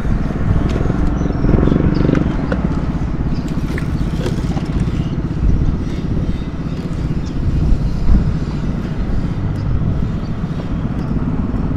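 A boat's engine running steadily, with a few light clicks and knocks over it.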